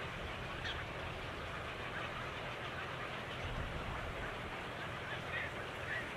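A few short bird calls over steady background hiss and a low rumble.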